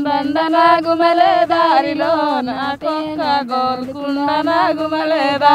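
A solo voice singing a slow melody with long held, bending notes and short breaks between phrases.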